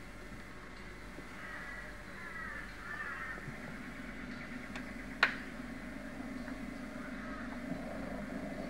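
A crow-like bird cawing a few times in quick succession, then a single sharp click about five seconds in, over a low steady hum.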